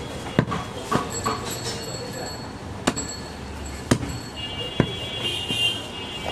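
A long butcher's knife chopping through goat leg meat and bone onto a wooden chopping block: about five sharp chops at uneven spacing, roughly a second apart. A high squeal rises over it for a second or two after the last chop.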